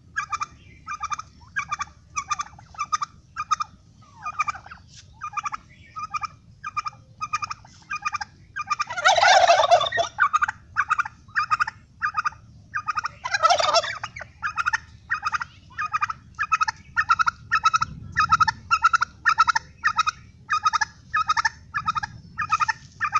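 Turkeys calling: a steady string of short calls, about two a second, broken by two louder, longer gobbles about nine and thirteen seconds in.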